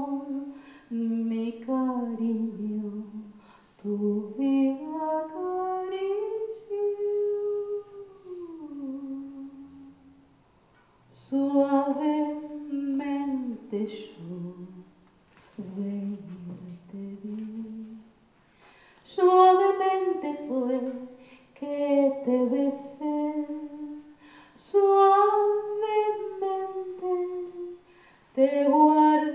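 A woman singing solo and unaccompanied, in slow phrases with long held and gliding notes, separated by short silent pauses.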